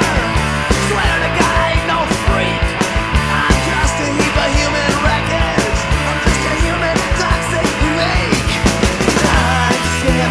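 Loud rock music with a steady, driving drum beat and bass.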